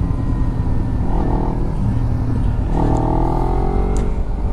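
Carbureted Kawasaki Ninja motorcycle engine running steadily while riding at road speed, with heavy wind noise on the microphone.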